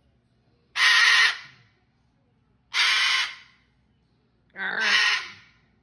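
Cockatoo screeching: three harsh calls, each about half a second long, about two seconds apart.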